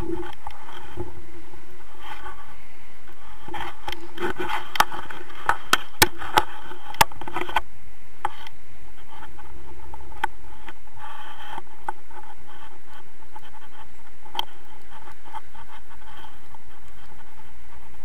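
Rushing airflow from paraglider flight on the camera's microphone, with scraping and clicking from the camera and its mount. A run of sharp clicks comes between about four and eight seconds in, with a few single clicks later.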